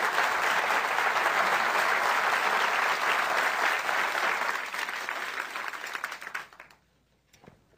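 Large audience applauding, a dense steady clapping that dies away about six and a half seconds in.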